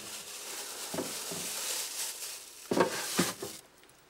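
Steady sizzle of meat frying in a pan, with a few knocks from handling at the fridge. The hiss cuts off suddenly near the end.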